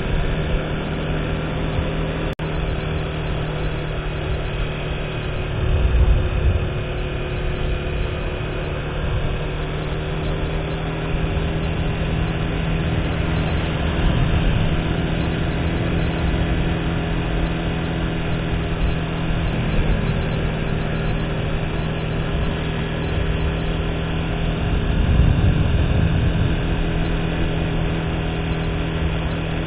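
Motorcycle engine running at a steady cruising speed, a constant hum under low wind rumble on the microphone that swells about six seconds in and again near the end. A single short click about two seconds in.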